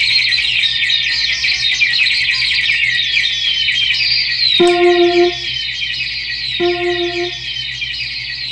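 Electric guitar through a Boss DD-5 digital delay and an FM4 filter pedal, making bird-like chirps: a dense stream of quick, high, falling squeaks, repeated by the delay. Twice a short held lower note sounds, about halfway through and again two seconds later, and the chirping is quieter after the first.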